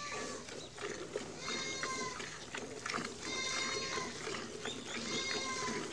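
A farm animal calls three times, about two seconds apart, each a short cry held on one pitch. Underneath runs the steady splashing of milk squirted by hand into a steel bucket.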